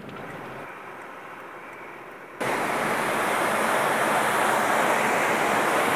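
Steady rushing noise from a moving car crossing a steel bridge: a quieter hiss that jumps suddenly to a loud, even rush about two and a half seconds in and holds.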